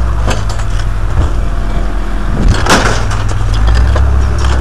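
Scrap being tossed from a truck bed onto a scrap-yard pile: a sharp metallic crash about two and a half seconds in, a smaller knock near the start and a few light clanks, over a steady low rumble.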